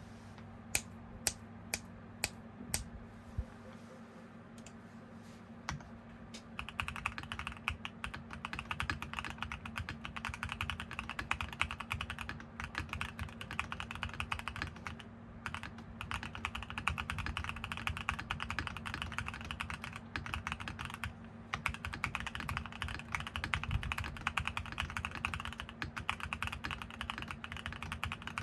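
Mode Sonnet custom mechanical keyboard with a carbon fiber plate and stock WS Quartz switches being typed on, a poppy, clacky sound. A few single sharp key clicks come first, then continuous typing starts about six seconds in, with two brief pauses.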